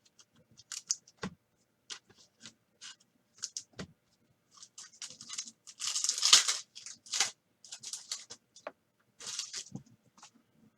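A trading-card pack wrapper being torn open and crinkled, with the cards handled: a run of short crackly rustles and snaps, densest and loudest a little past the middle.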